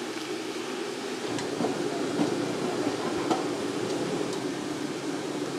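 Steady rumbling noise of a large pot of boiling broth on a food-stall burner, with a few sharp clinks of steel ladles against the pot.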